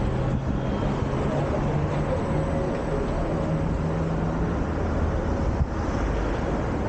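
Road traffic running past, the engines of passing vehicles under a steady rush of noise, with a low engine hum that fades about four seconds in.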